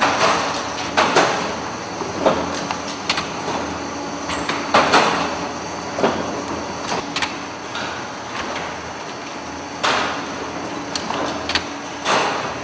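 Sheet-fed printing press running: a steady mechanical hum under irregular clacks and swishes about every second, as sheets and rollers move through the machine.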